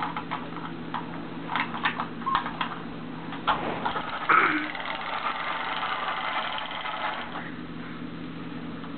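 Clicks and knocks of a small plastic toy truck being handled, then, about four seconds in, a steady engine-like buzzing whir for about three seconds while the truck is pushed along the carpet.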